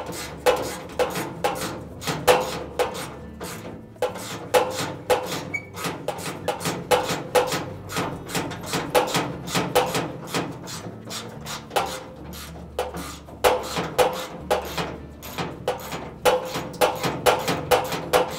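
3/8-inch ratchet clicking as it backs out a bolt, in quick uneven runs of sharp metallic clicks with brief pauses between strokes.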